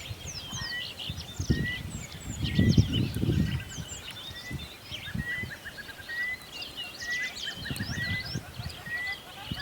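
A chorus of wild birds chirping and calling, with one bird repeating a short whistled note about once a second. Low rumbling bumps on the microphone come in about a second and a half in, are loudest around three seconds in, and return near the end.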